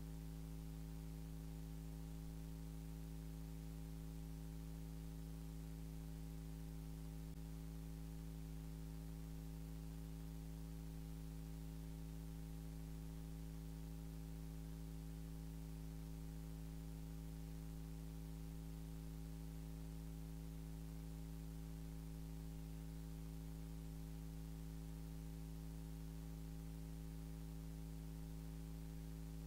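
Steady electrical mains hum from the sound system, a stack of several unchanging tones with the lowest ones strongest.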